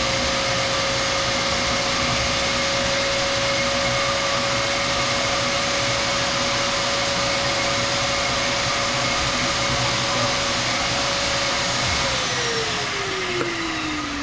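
An electric motor running at a steady high pitch under a loud whoosh, then switched off about twelve seconds in and winding down, its pitch falling.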